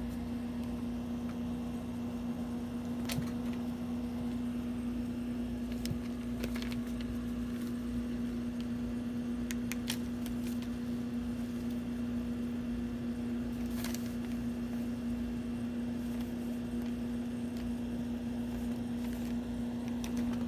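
A steady low mechanical hum, one constant tone over a low rumble, with a few faint scattered clicks and taps.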